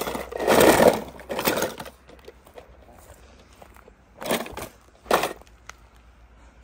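Toy cars scraping and crunching over rocks: a long burst in the first two seconds, then two short ones about four and five seconds in.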